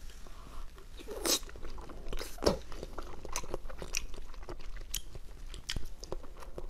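Biting into and chewing soft, sausage-shaped jelly sweets, heard close on a clip-on microphone: an irregular run of short, sharp mouth clicks.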